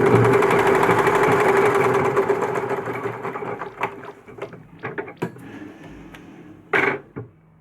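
Butterfly sewing machine running steadily at a fast stitching rhythm, then slowing and stopping about three seconds in. Scattered small clicks follow, with one short louder knock near the end.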